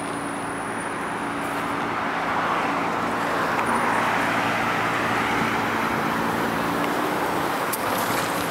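Road traffic: cars passing through a city intersection, a steady hiss of engines and tyres that swells over the middle seconds and eases a little near the end, with a steady low hum beneath it.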